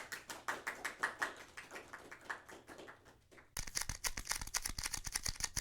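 A rapid series of clicks and taps. Soft, fading taps run for about three seconds, then after a short pause a sharper, faster run of bright clicks.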